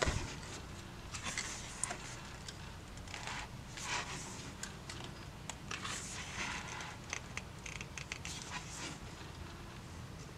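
Pages of a 72-page album photobook being turned by hand: soft paper swishes and rustles, irregular, about one every second.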